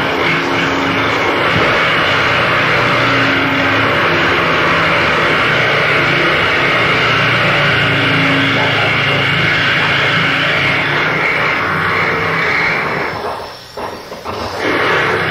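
Loud, dense wall of harsh noise with low droning tones, dipping briefly near the end.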